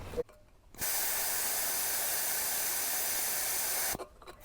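Air hissing steadily out of a motorcycle tyre valve as the tyre pressure is let down for riding in deep sand; the hiss starts about a second in and cuts off sharply near the end.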